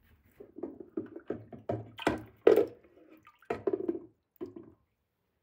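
Water in a toilet bowl sloshing and splashing as a handheld radio is pushed under and swirled around by hand, in a run of irregular splashes that stop near the end.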